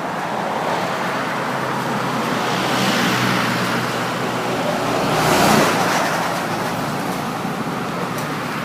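Road traffic: vehicles passing on a road, with the noise swelling as one goes by about three seconds in and again, loudest, about five and a half seconds in.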